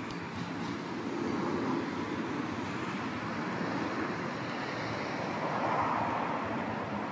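Road traffic noise: a steady wash of passing vehicles, swelling as a vehicle goes by about six seconds in.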